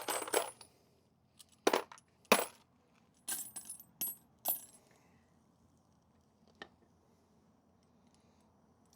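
Brass shell casings in a furnace crucible giving a few sharp metallic clinks and pops, the two loudest about two seconds in, then a lone faint one later.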